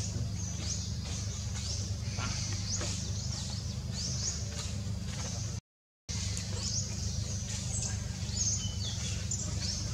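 Small birds chirping in quick, scattered high notes over a steady low rumble. All sound cuts out for about half a second just past halfway.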